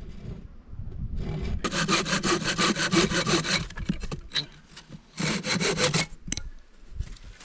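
Hand-sawing the tab off a wooden beehive frame's top bar: a quick run of rapid back-and-forth saw strokes for about two seconds, then a second short spell of sawing near the end.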